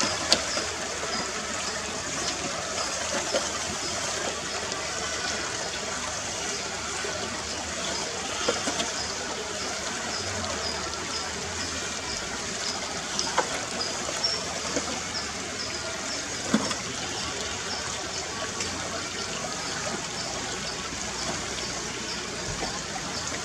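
Shallow creek water running steadily over stones, with a few sharp knocks now and then.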